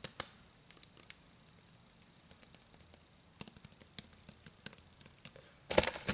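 Fingernails tapping and scratching on a small cardboard butter box: scattered light clicks, thicker in the second half. Near the end a loud crinkling of plastic packaging starts.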